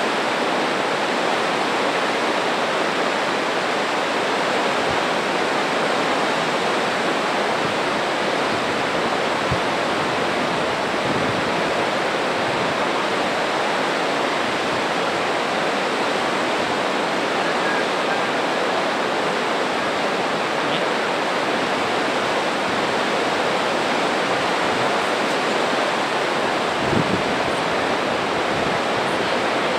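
Spokane Falls and the fast river rapids below them, a steady, unbroken rush of white water.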